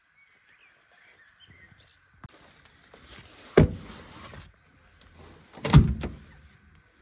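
Two heavy thumps, about two seconds apart, with rustling around them, as a backpack is shoved down between the seats onto the metal checker-plate floor of a fire engine's crew cab.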